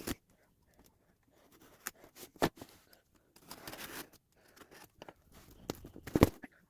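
A cardboard shipping box being opened: tearing and rustling of tape and cardboard broken by several sharp knocks, the loudest just before the end.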